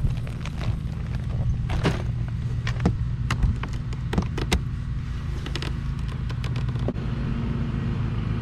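Outboard engine idling steadily, with scattered sharp clicks and knocks over it.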